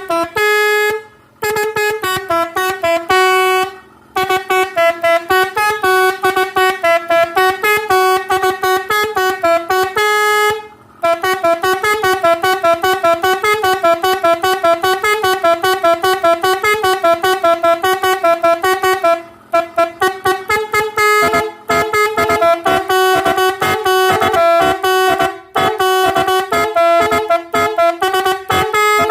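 Three-trumpet basuri musical horn playing a tune as a run of short, rapid toots on changing notes, with a few brief pauses.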